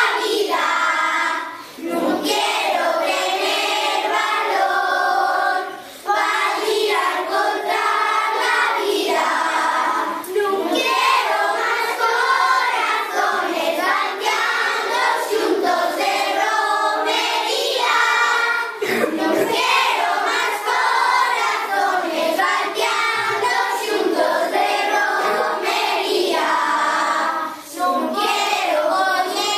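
A class of children singing an Asturian song together, with brief pauses between lines.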